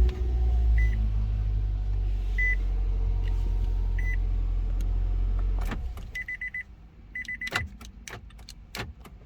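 Nissan Altima engine starting and idling with a steady low hum, then shut off about six seconds in, tested with a newly programmed smart key. Single short electronic beeps sound over the idle, then two quick runs of beeps after the shutoff, followed by light clicks.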